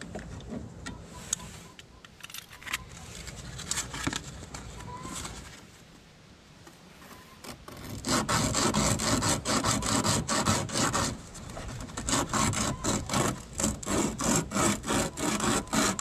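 Sandpaper rubbed back and forth by hand around the sawn end of a car air-conditioning hard line, deburring it so a compression fitting will seal. The rubbing is faint and irregular at first, then about halfway through becomes loud, quick, steady strokes.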